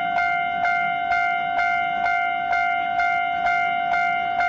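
Railway level-crossing warning bell ringing in an even, steady rhythm, about two strokes a second, each stroke on one ringing tone.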